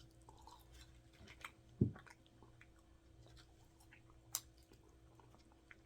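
Faint, close-miked chewing and wet mouth sounds of someone eating a cheeseburger, with scattered small clicks. A short low sound comes about two seconds in and a sharp click a little after four seconds.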